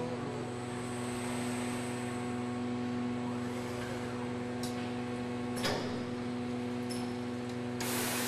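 Assembly-line robot station running with a steady mechanical hum of several fixed tones, a few short clicks in the middle, and a loud burst of hiss near the end.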